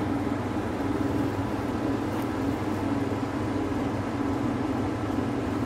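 A steady low mechanical hum with a constant drone, unchanging throughout.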